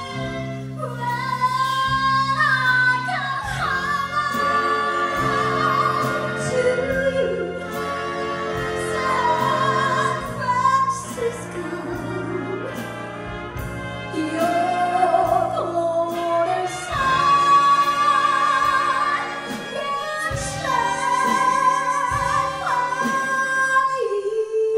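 A female vocalist sings a jazz number with vibrato, backed by a big band.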